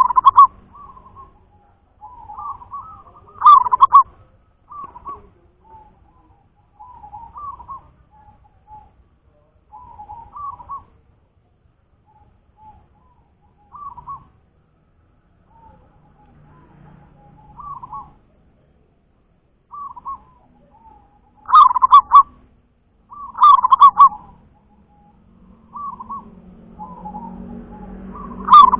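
Perkutut (zebra dove) cooing its song: short soft coo phrases every second or two, with louder calls a few seconds in, twice in the second half and again at the very end. A low rumble builds up near the end.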